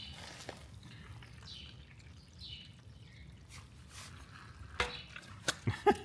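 Water dripping and trickling out of a bucket of soaked hay as it is pressed down to drain, with a few sharp taps near the end.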